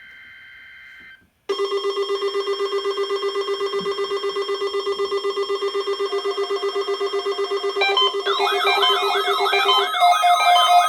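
Emergency alert test tones over a weather radio broadcast. A brief, quieter high tone cuts off about a second in. Then a loud, rapidly pulsing, ringing alarm tone with many overtones sounds, joined about eight seconds in by a warbling siren tone that sweeps up about three times a second.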